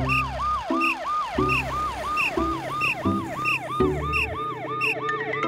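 Cartoon emergency-vehicle siren yelping: a rising-and-falling tone repeating about three times a second, over background music with a bass line and chiming notes.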